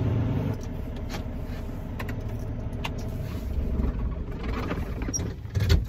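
Steady low engine rumble of a semi truck heard inside the cab, with a few faint clicks and a thump near the end.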